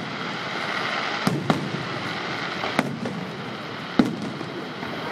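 Fireworks salute: a steady crackling of bursting shells, broken by four sharp bangs, the loudest near the end.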